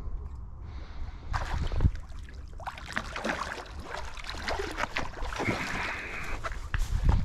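A hooked fish thrashing and splashing at the water's surface close to the bank, in irregular bursts from about a second in.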